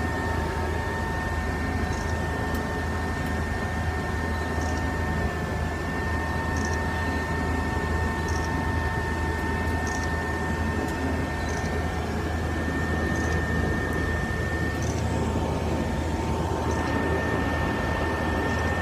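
Seaplane's propeller engine running steadily, heard from inside the cabin as the plane taxis on the water: a constant low drone with a steady whine over it.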